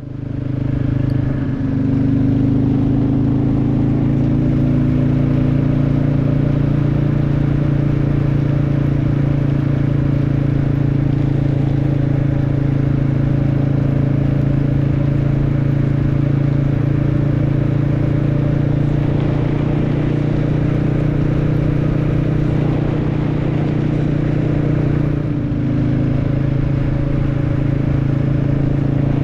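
Royal Enfield motorcycle engine running steadily at road speed, heard from the bike. Its note swells over the first couple of seconds, then holds, with a brief dip about three-quarters of the way through.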